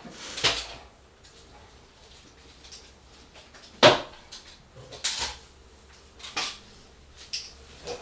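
Rifles and gear being handled and set down: about five separate knocks and clunks spread over several seconds, the loudest about four seconds in.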